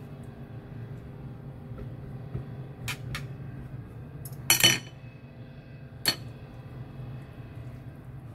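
Chopsticks clicking against a ceramic bowl while scooping vegetable filling onto a spring-roll wrapper, a few sharp clicks with one louder clatter about halfway through. A steady low hum lies underneath.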